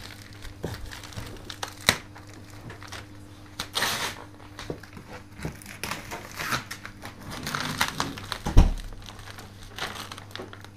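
Gift-wrapping paper being ripped and crumpled off a large cardboard box by hand, in irregular tears and rustles. A single loud thump comes about eight and a half seconds in.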